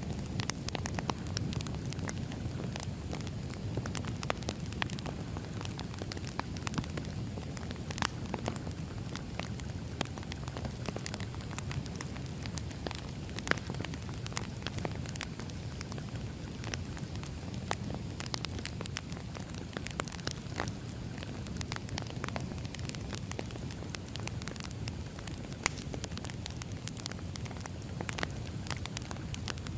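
Wood fire crackling: a steady low rumble of burning with irregular sharp pops and snaps throughout.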